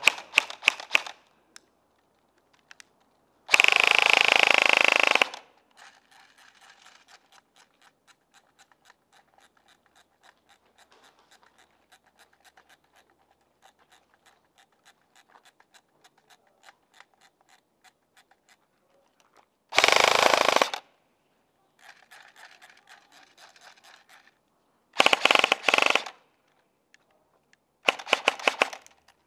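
Airsoft rifle firing rapid full-auto bursts: five bursts of one to two seconds each, the longest and loudest a few seconds in and three shorter ones in the last ten seconds, with faint scattered ticks between them.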